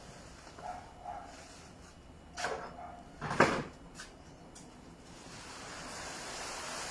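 Animal calls: a few short cries, then a louder one about three and a half seconds in.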